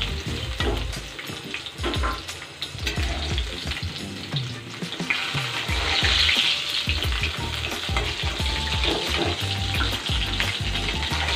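Rohu fish pieces sizzling in hot mustard oil in a metal kadai, with the scrape and knock of a metal spatula turning them and lifting them out. The sizzle swells for a moment about six seconds in.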